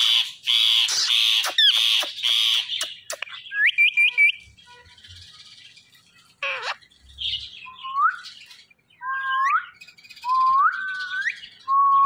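Indian ringneck parakeet screeching in a fast run of harsh calls for about three seconds, then four quick rising chirps. From about eight seconds in, a person whistles rising notes to the bird, one about every second.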